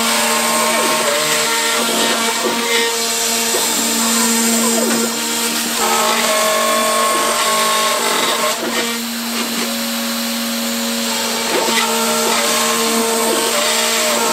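DIY CNC router's small air-cooled spindle milling MDF at 3 mm per pass over a steady hum, with the stepper motors whining and sliding up and down in pitch as the axes move. At this pass depth the machine is struggling.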